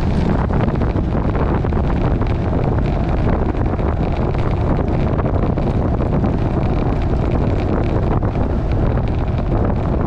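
Loud, steady wind rush over the microphone of a bicycle descending at about 25 mph, with a scatter of small knocks from the bike rolling over rough, patched pavement.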